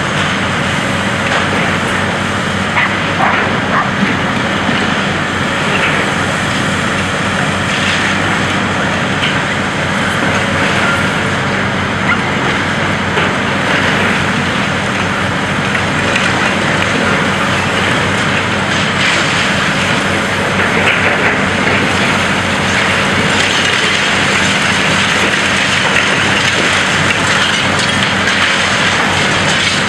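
High-reach demolition excavator pulling down a concrete building: a steady din of diesel engine and hydraulics, with sharp cracks of breaking concrete now and then.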